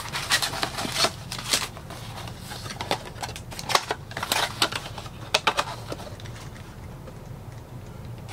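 Cardboard NBA Hoops trading-card blaster box being torn open by hand: a quick run of crackles and snaps as the tab and flaps are pulled apart, thinning out after about six seconds.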